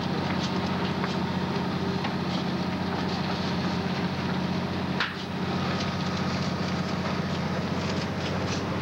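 Steady low engine drone under a rushing hiss, likely a fire engine running its pump to feed the hose lines on the blaze. A sharp click about five seconds in.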